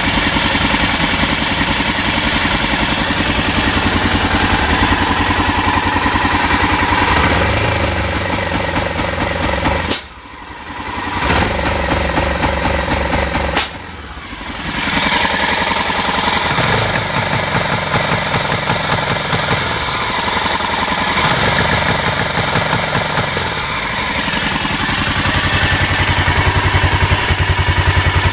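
BMW F650 Funduro's Rotax single-cylinder engine running, its exhaust note pulsing. Twice, about ten and fourteen seconds in, the sound drops away suddenly and then picks up again. This is the misfire that the owner says keeps it from revving above 3000 rpm.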